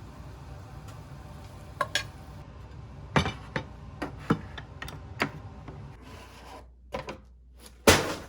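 Kitchen utensils knocking and clinking against pots and dishes, about ten sharp knocks at uneven intervals, the loudest just before the end, over a steady low hum that stops about six seconds in.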